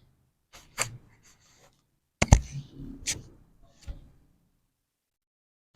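Sharp cracks and thumps of a chiropractic spinal adjustment on a patient lying face down: a couple of quick clicks about a second in, one loud crack with a low thud just past two seconds, then two lighter clicks.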